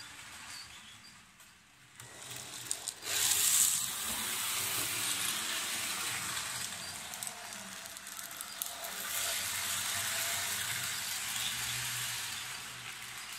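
BTTB TT-scale model diesel locomotive running on its track: a steady hissing whir from its motor and wheels, with scattered small clicks. It is quieter at first and gets louder about three seconds in.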